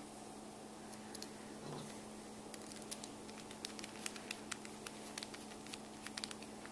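Small screwdriver turning a tiny screw into the metal strips of a toy robot construction kit: light, irregular metal clicks and scratches, coming more often from about halfway through, over a steady low hum.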